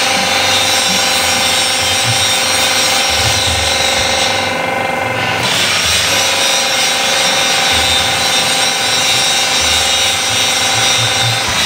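A hydraulic power pack, a 5 hp electric motor driving a 6 cc gear pump, running with the system pressurised to about 250 bar, together with an angle grinder grinding metal close by. The grinding hiss eases off for about a second near the middle, then carries on.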